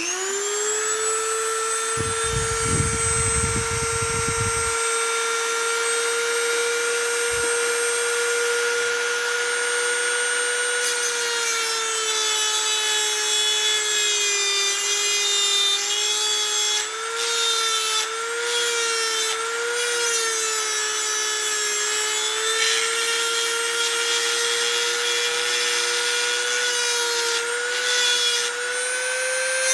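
Dremel rotary tool grinding a tooth of a chainsaw chain, taking down the raker or reshaping the cutter. It is a steady high motor whine whose pitch sags and wavers in the middle as the bit is pressed against the steel, then climbs back near the end.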